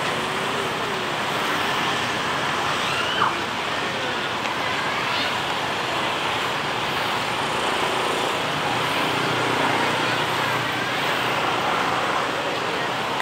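Steady road traffic noise, an even rush of passing cars and motorbikes, with a few faint distant voices and one brief knock about three seconds in.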